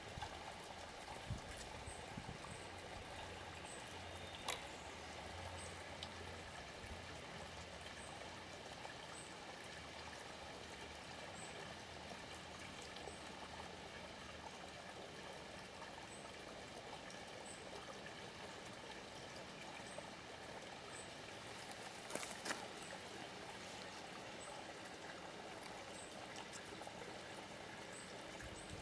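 Faint, steady trickling of running water, with a soft high chirp every second or two and a brief click about 22 seconds in.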